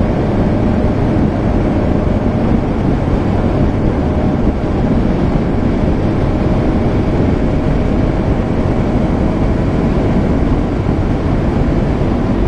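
Steady wind and road noise from a Bajaj Pulsar NS200 motorcycle cruising at highway speed, around 70 km/h, with its single-cylinder engine running underneath.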